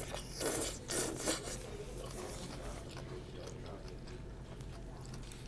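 A person slurping black bean noodles (jjajangmyeon): two short, rasping slurps about half a second and a second in, then a quieter steady background.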